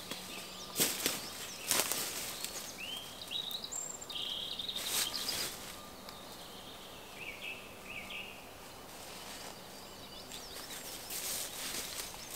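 Dry fallen beech leaves rustling and crunching as a person steps and moves about in the leaf litter, with a few sharp crackles in the first few seconds. Small birds chirp in short phrases in the background.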